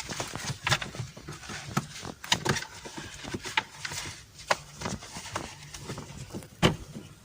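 Irregular clicks, knocks and rustling from handling a car seat belt and its metal tongue while threading the belt under a plastic child car seat, with one sharper knock near the end.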